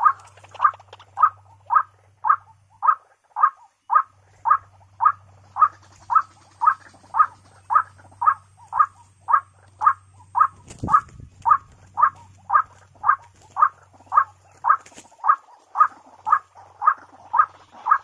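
White-breasted waterhen call: a short note repeated very evenly, a little under twice a second, over a faint low hum. A single thump sounds about eleven seconds in.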